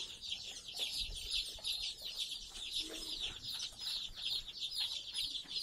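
A brood of day-old desi and Kuroiler chicks peeping without pause, many short, high, falling peeps overlapping into a steady chorus.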